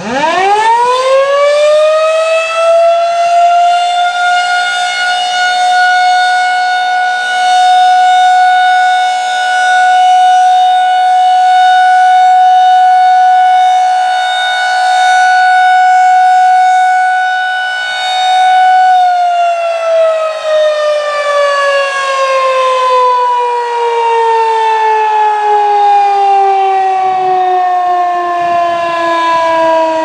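Federal Signal 2001-SRNB rotating electromechanical siren winding up from a stop to a steady high tone, its loudness swelling and fading as the horn rotates. About nineteen seconds in it cuts off and the pitch slowly falls as it winds down: a short alert test signal.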